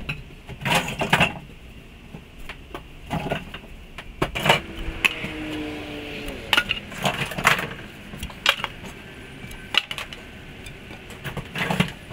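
Scrap lumber from a torn-out wall being handled and tossed, making repeated separate wooden knocks and clatters, with a short falling squeak about five seconds in.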